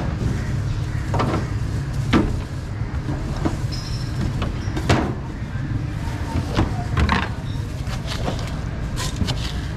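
A steady low hum in the background, with scattered knocks and clicks as a plastic blender jar and utensils are handled and set down on a steel counter.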